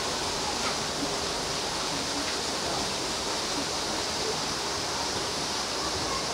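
Steady rushing noise of running or falling water.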